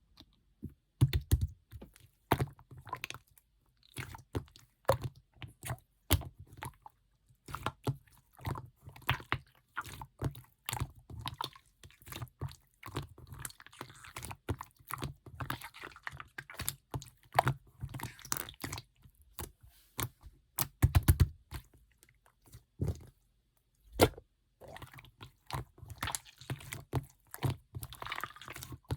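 Clear slime being squeezed and poked by hand, giving irregular sticky clicks and pops, with short stretches of crackling.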